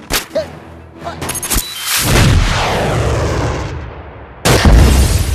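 Film sound effects over the music score: a few sharp shots in the first second and a half, then a loud booming blast about two seconds in that dies away slowly, and a second loud blast near the end.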